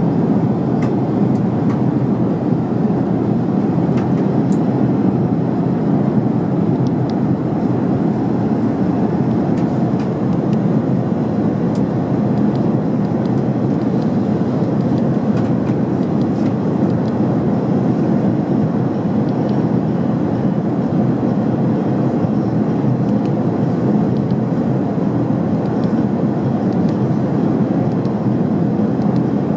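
Steady cabin noise of an Airbus A380-800 cruising at altitude: an even, low rumble of airflow and engines that holds at one level throughout.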